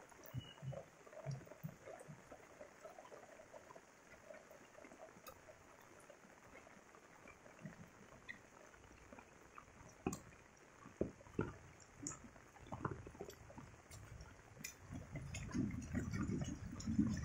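Light rain falling, with scattered drips and patters and a faint trickle of water, plus a few louder taps around the middle. A louder low rushing of water builds near the end.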